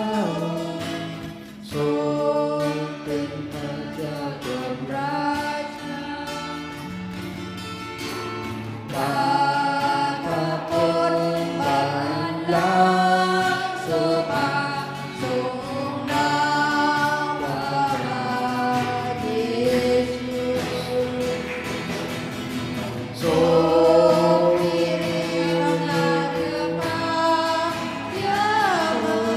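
A group of voices singing a worship song in long held phrases, with instrumental accompaniment underneath.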